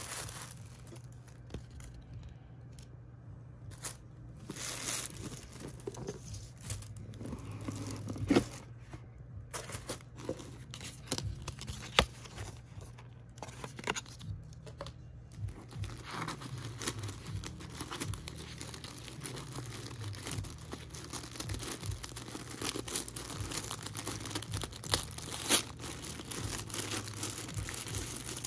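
Paper and cardboard rustling and crinkling as a gift box is unpacked by hand: a stiff card handled, then tissue paper peeled open at its seal, with a tearing, crinkling sound. Scattered sharp taps and clicks run through it, the loudest about eight and twelve seconds in, over a low steady hum.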